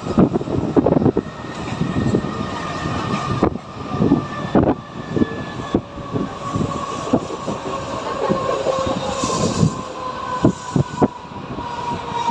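Mumbai suburban electric local train running along the track, its wheels clattering over rail joints in irregular knocks, with a steady whine underneath.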